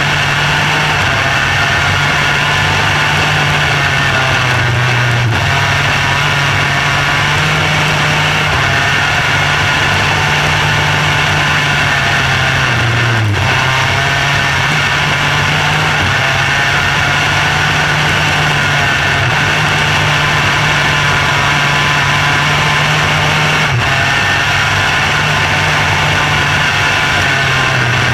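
Micro sprint car engine, heard from on board, running steadily under way on a dirt track. Its pitch dips briefly three times as the car goes through the turns.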